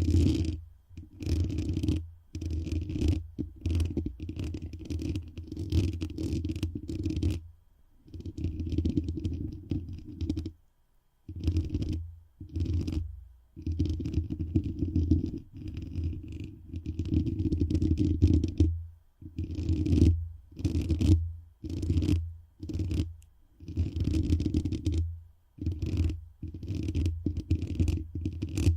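Something rubbed and scraped directly against a microphone for an ASMR friction trigger: a run of uneven strokes, each a muffled low rumble with a little hiss, about one every second or so with short pauses between.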